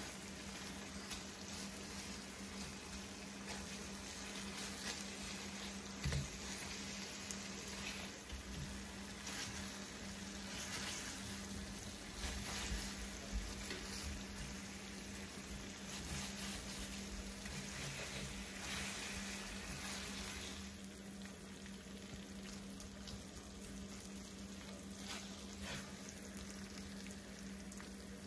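Honey barbecue sauce sizzling and bubbling around turkey wings in a cast-iron skillet, an even hiss with occasional small clicks and knocks as silicone tongs turn the pieces. The sizzle softens a little about two-thirds of the way through. A steady low hum runs underneath.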